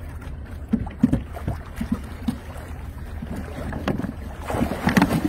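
Small fishing boat moving through calm lake water, water splashing and sloshing at the hull, with wind buffeting the microphone. The splashing grows louder near the end.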